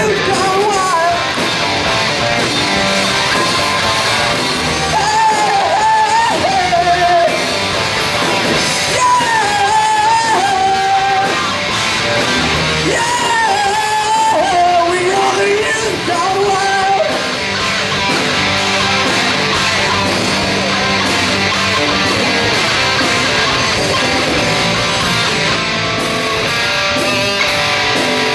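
Rock music with guitar in a passage without sung lyrics, a wavering lead melody line over the band, which later settles onto a held low note.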